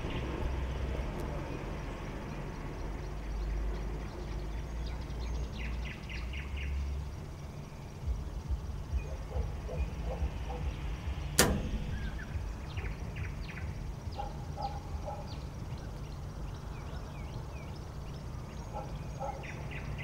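Night-time outdoor ambience: a low rumble that stops about seven seconds in, several quick runs of short high chirps, and one sharp click about eleven seconds in, the loudest sound.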